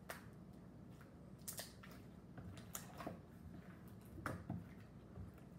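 Homemade slime being stretched and pressed by hand on a tabletop: faint, short clicks and pops, about six of them at irregular intervals.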